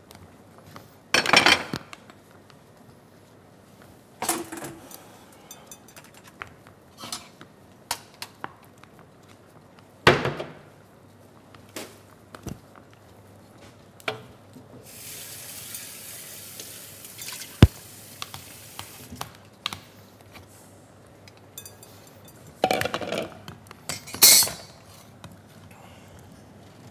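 Kitchen utensils clattering as a metal food mill and bowls are handled: scattered knocks and clacks, the loudest ones near the start, about ten seconds in and twice near the end, with a hiss lasting a couple of seconds around the middle.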